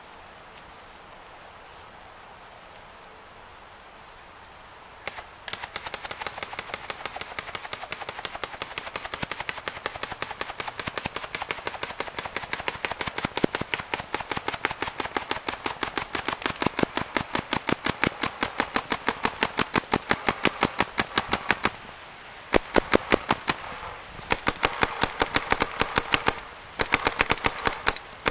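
Planet Eclipse Gmek mechanical paintball marker firing a long, rapid string of shots, several a second, starting about five seconds in, with a few brief breaks near the end.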